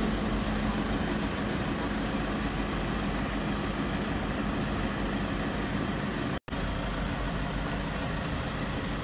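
Steady low mechanical rumble with hiss, without change. The sound cuts out for a split second about six and a half seconds in.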